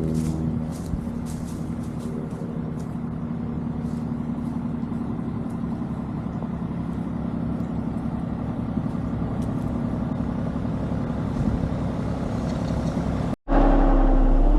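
Engine running steadily with a low rumble. Near the end there is a sudden cut, and a louder engine hum follows.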